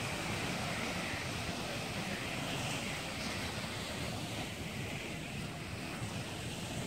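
Ocean surf washing onto a sandy beach in a steady hiss, with wind buffeting the microphone in a low rumble.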